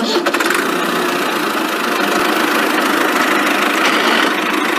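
Cartoon tractor engine sound effect running steadily.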